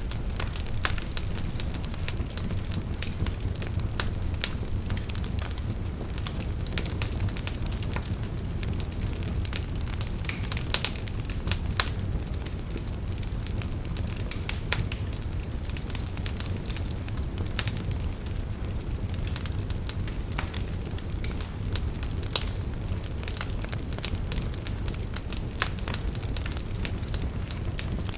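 Wood fire burning with a steady low rumble and frequent irregular crackles and pops of burning wood.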